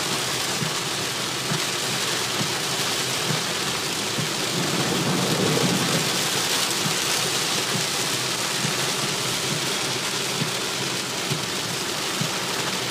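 Heavy downpour hitting a car's roof and windshield, heard from inside the cabin: a steady dense hiss of rain full of many small impacts.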